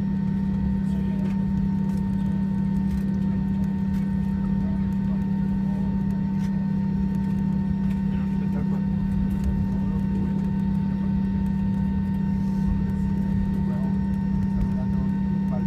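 Cabin noise of an Airbus A320-214 taxiing, heard by a window seat beside the wing: its CFM56 engines at idle give a steady loud hum with a few fixed whining tones above it, over a rumbling noise from the aircraft rolling along the taxiway.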